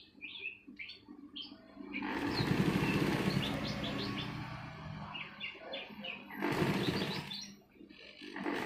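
Sewing machine stitching in a long run of about four seconds, then a shorter run, with small birds chirping.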